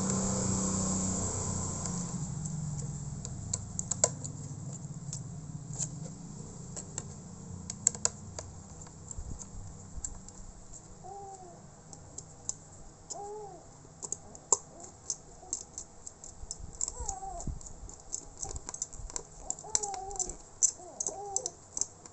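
Small sharp clicks and taps of laptop parts being handled and fitted back together while reassembling the cooling fan. A steady engine hum fades away over the first few seconds, and birds chirp repeatedly in the background from about halfway through.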